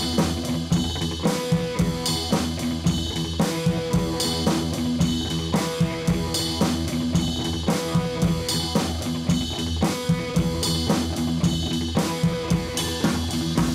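Background music: a drum-kit beat with guitar, at a steady tempo.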